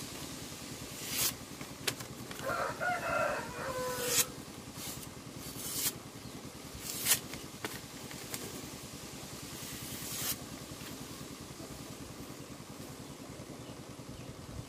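A sharp steel knife slicing through a sheet of paper in several short, crisp cuts over the first ten seconds, a test of a freshly honed edge. A rooster crows once in the background a couple of seconds in, over a steady low hum.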